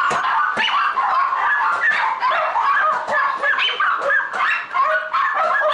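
Many caged small-breed dogs, Yorkshire terriers among them, barking and yapping at once. It is a loud, unbroken chorus of overlapping high yaps.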